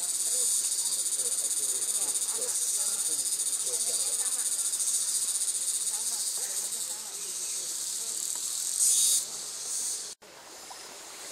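Steady, high-pitched chorus of insects buzzing in the forest, swelling louder briefly near the end before cutting off abruptly and continuing fainter.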